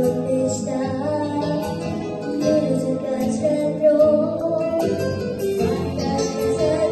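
A young female voice singing a melody over guitar accompaniment.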